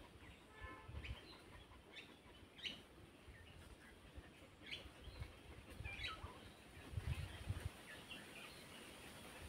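Faint bird calls in the waterside trees: short separate chirps every second or two, with a brief higher whistled call less than a second in. Soft low thumps sit underneath.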